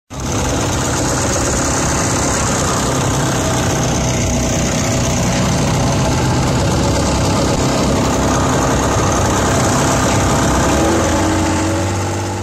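A motorboat's engine running steadily while the boat is under way, with a constant rush of water and wind over it.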